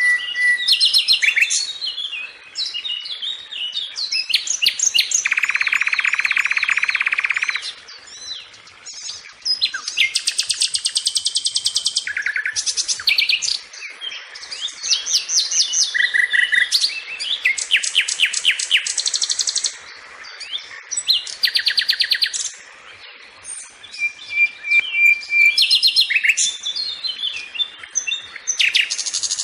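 Sikatan (flycatcher) singing a long, varied song of clear whistled notes, fast rattling trills and, about five seconds in, a long buzzy trill lasting a couple of seconds, broken by short pauses.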